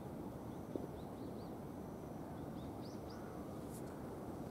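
Outdoor ambience: a steady low background rumble with a few faint, short, high bird chirps, a small group about a second in and another near three seconds in.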